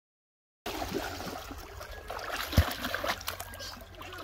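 Dead silence for the first moment, then water splashing and sloshing as a child moves through shallow water, with one sharp thump about two and a half seconds in.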